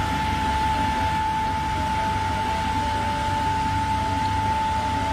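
Truck-mounted road sweeper (Roots sweeper on an Eicher chassis) at work: steady engine rumble under a broad hiss from the spinning side brush and suction, with a steady high whine over it.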